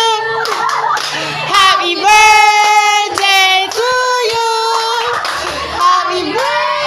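Several high voices, women and children, singing together in long held notes, with hand-clapping mixed in.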